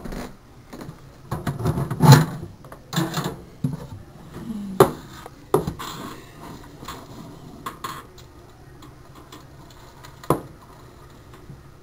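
Irregular knocks, clatters and rustling as a terrarium is opened and a hand moves through its plastic plants and bark substrate, busiest in the first half, with a few sharp clicks later.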